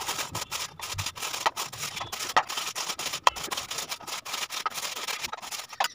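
White radish grated on a flat handheld stainless-steel grater: quick, repeated rasping strokes of the root across the fine grating holes.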